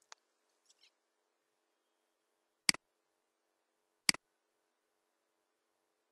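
Computer mouse clicks over faint room hum: a faint click at the very start, then two sharp clicks about a second and a half apart, each a quick press and release.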